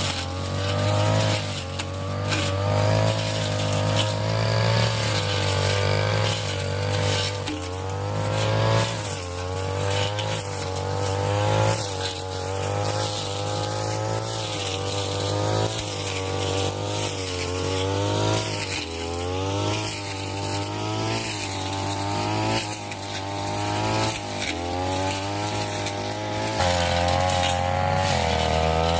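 Brush cutter engine running hard, its pitch dipping and recovering over and over as the blade cuts into dense undergrowth.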